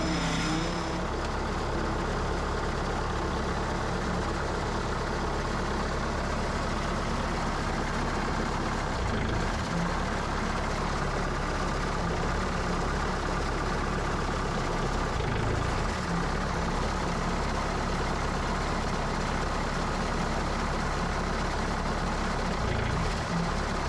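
Bobcat S160 skid steer's diesel engine running steadily, kept running so the hydraulics are under pressure while a leaking hydraulic line is traced.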